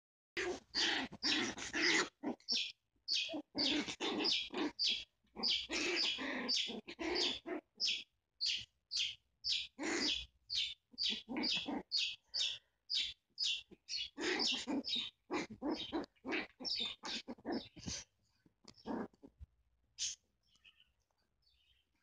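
Two chihuahuas play-fighting, yapping and barking in quick short bursts, several a second. The yapping thins out to a few scattered sounds near the end.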